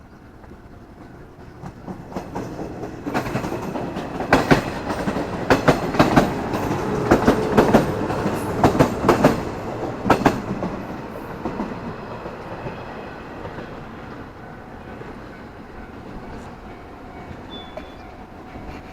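A train passing over rail joints. The sound builds for a couple of seconds, then the wheels clatter in clusters of sharp clacks between about three and ten seconds in, and it fades slowly as the train moves away.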